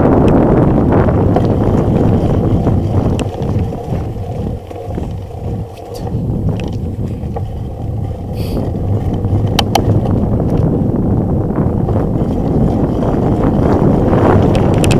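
Wind buffeting the microphone of a bike-mounted camera as a mountain bike rides fast down a dirt trail, with tyre and frame noise over bumps. The rush dies down for a couple of seconds around the middle, then builds again, with a few sharp clicks in between.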